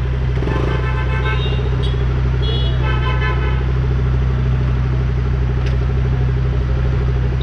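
Engines idling steadily in stopped city traffic, with vehicle horns honking twice in the first half.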